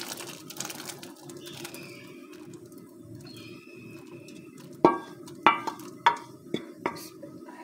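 Boiled chickpeas in gravy pouring softly from a metal pot into a glass bowl, then the metal pot knocking and clinking against the glass bowl's rim about six times in the last few seconds as it is tapped empty.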